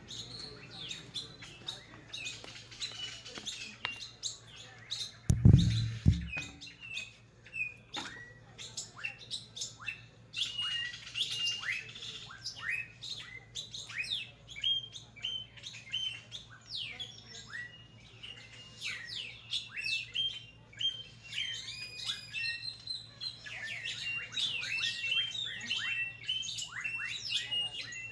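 Small birds chirping: many short, quick downward chirps repeated throughout, with a brief low rumble about five and a half seconds in.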